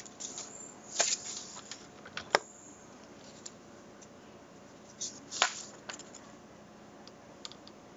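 A few brief clicks and rustles of handling at a desk or lectern: a sharp click about two seconds in and a longer, louder rustle about five seconds in, over quiet room tone.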